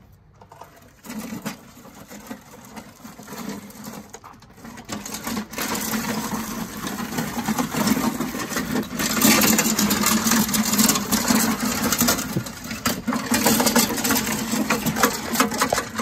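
Husqvarna 6021P push mower's 149cc Kohler single-cylinder engine running, with a big clunky noise from its bent blade that is missing a piece. It gets louder from about nine seconds in.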